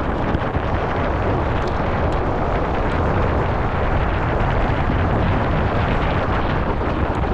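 Wind rushing over the rider's camera microphone as a mountain bike rides downhill, a steady rumbling noise with tyre roar and small scattered rattles from the bike on the trail.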